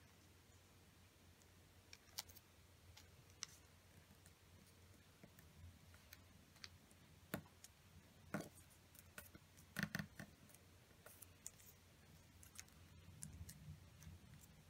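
Faint, scattered crinkles and crisp clicks of a small square of origami paper being folded and creased by fingers. The loudest clicks come a little past the middle, over a low steady hum.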